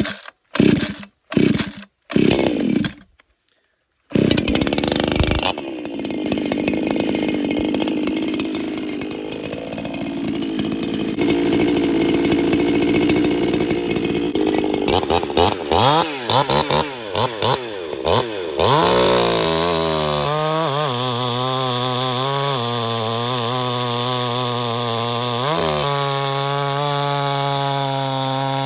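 Chainsaw cutting cookies off a log, with crazy power. It is revved in a few short bursts at first, then runs under load through the cut, swings up and down in pitch as the throttle is worked, and settles into a steady running tone for the last third.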